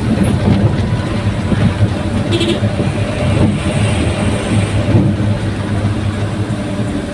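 Daihatsu Gran Max pickup with an aftermarket exhaust, running steadily: a constant low engine rumble.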